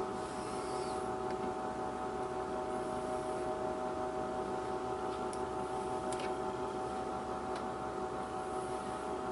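Steady electric hum of an egg incubator's fan motor, with a few faint, light clicks.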